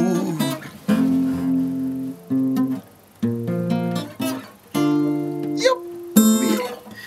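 Acoustic guitar strumming about five chords, each struck and left to ring before the next.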